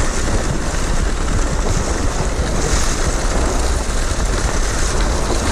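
Steady rushing noise of a kicksled gliding along a snowy trail, with wind buffeting the microphone as it moves.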